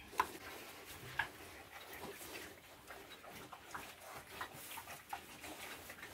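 Young pigs moving about a pen, faintly snuffling and giving a few short grunts, with scattered light clicks, two sharper ones in the first second or so.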